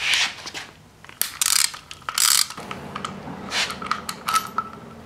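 Hand socket ratchet clicking in several short bursts as it backs out a bolt at the timing-belt tensioner of a Subaru EJ25 engine.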